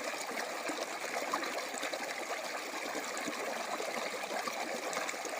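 Water flowing steadily with a trickling, babbling sound.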